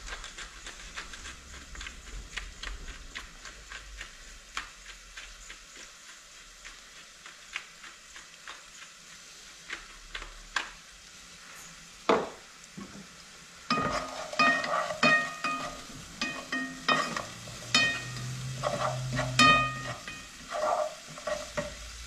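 Finely chopped onion and garlic sizzling quietly in oil in a nonstick pan on low-medium heat, with many fine crackles, then a spoon stirring them. A single knock about twelve seconds in, and background music comes in about fourteen seconds in.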